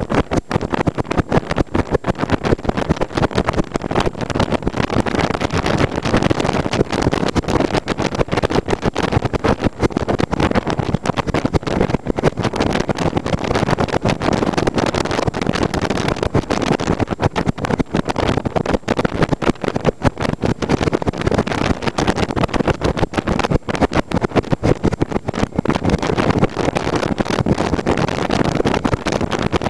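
Wind buffeting the microphone of a moving motorcycle, a steady rushing flutter over the motorcycle's engine and road noise.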